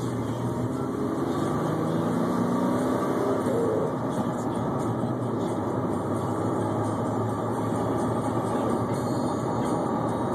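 Car driving at steady speed, heard from inside the cabin: even engine hum with tyre and road noise.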